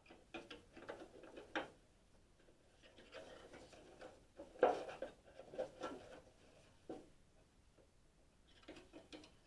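Faint, scattered metal clicks and taps of a hand tool prying at a part on a Craftsman lawn tractor's steering shaft, with the loudest knocks a little over four and a half seconds in.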